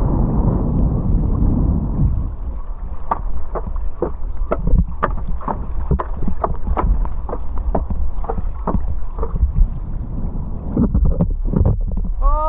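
Wind buffeting the microphone over water rushing past a hydrofoil board riding downwind swell, with a run of short sharp water splashes and slaps from about three to ten seconds in.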